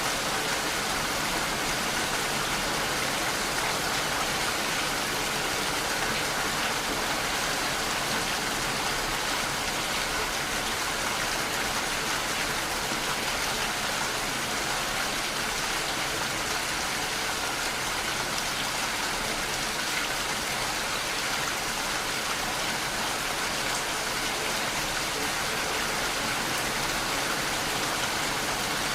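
Steady rainfall, an even hiss of drops with no breaks or changes in level.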